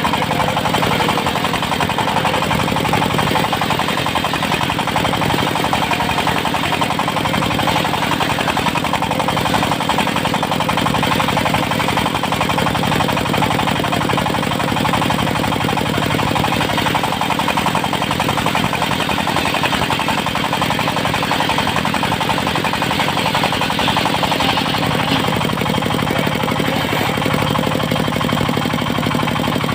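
Engine of a portable circular sawmill running steadily at a constant, loud level, with a rapid hammering beat.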